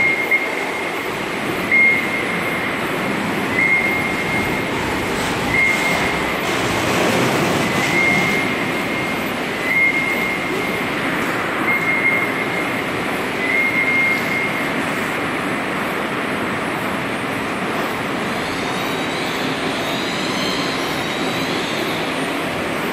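Potato-processing line machinery running with a steady mechanical noise. A short high-pitched tone repeats about every two seconds for the first fourteen seconds, and higher squealing tones come in near the end.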